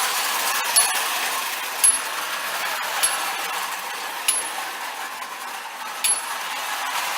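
Marx wind-up tinplate toy train running on metal track: the clockwork motor whirring and the tin cars rattling steadily, with a sharp metallic click about once a second.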